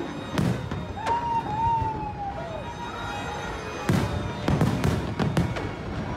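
Aerial fireworks bursting: a bang just after the start, a cluster of several bangs in quick succession from about four to five and a half seconds in, and a wavering high tone in between.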